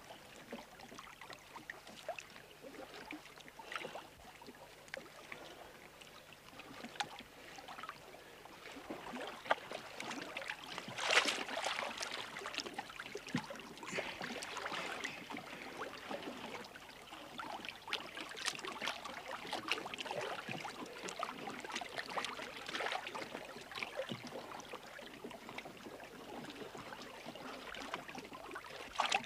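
Lake water lapping and splashing around a floating wooden log in small, irregular splashes, with a louder splash about eleven seconds in.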